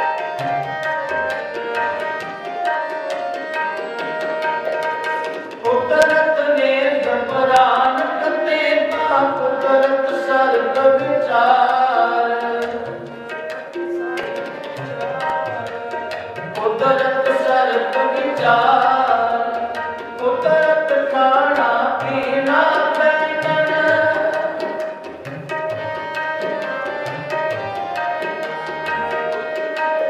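Sikh shabad kirtan: harmoniums holding chords under steady tabla strokes, with a sung vocal line swelling in about six seconds in and again around seventeen seconds, falling back to harmonium and tabla between.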